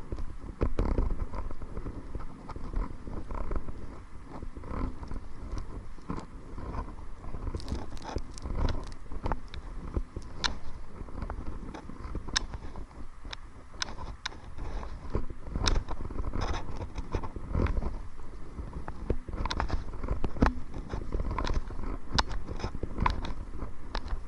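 Wind rumbling on the microphone while a kayak is paddled against the wind, with irregular small splashes and knocks from the paddle and water against the hull.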